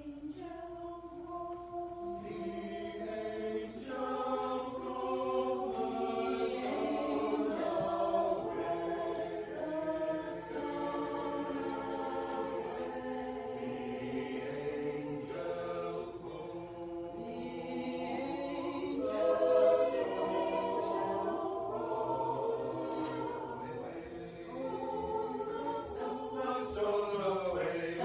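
A choir singing in several voice parts at once, with long held notes.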